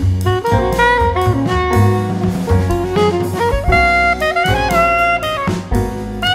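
Instrumental background music in a jazz style: a lead melody line over bass and drums.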